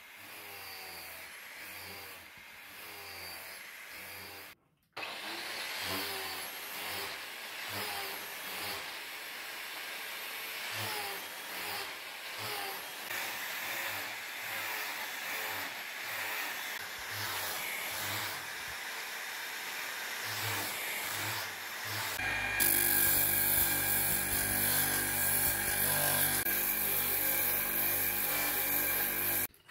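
Angle grinder with a hook-and-loop flap disc sanding an end-grain wooden cutting board in repeated passes. About 22 seconds in, a louder, steady bench-mounted disc sander takes over as the board's edge is pressed against its disc.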